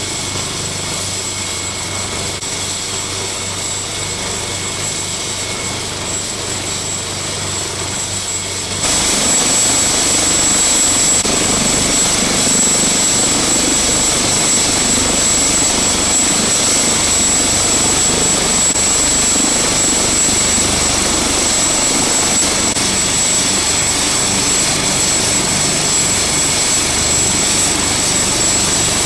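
MH-139 Grey Wolf helicopter running on the ground, its twin turboshaft engines and turning main rotor giving a steady rush with a thin high whine. About nine seconds in the sound jumps suddenly louder and fuller, then holds steady.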